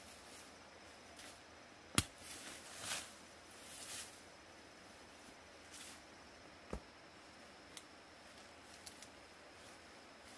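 A sharp knock about two seconds in, followed by a couple of seconds of rustling or scraping, then a second knock a few seconds later and a few faint ticks, over a quiet background hiss.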